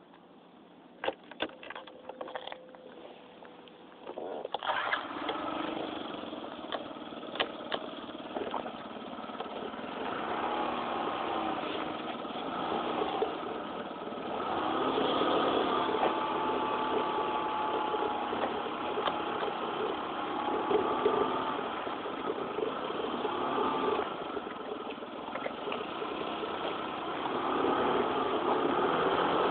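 A few sharp clicks and knocks, then a Yamaha Jog 4st scooter's small single-cylinder four-stroke engine starts about four and a half seconds in. It idles and then runs as the scooter rides off, its note rising and falling and getting louder in the second half.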